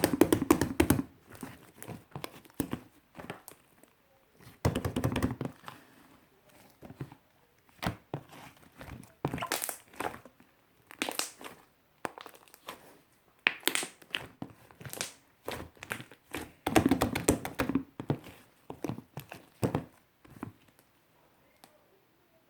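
Fluffy shaving-foam slime being squeezed and pulled by hand, giving clusters of crackling clicks and pops every second or two with short quiet gaps between.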